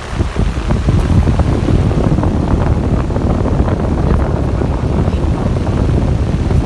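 Running Carrier outdoor condensing unit, its fan discharge blowing straight onto the microphone: a loud, steady, gusty rumble of wind noise that cuts in abruptly at the start.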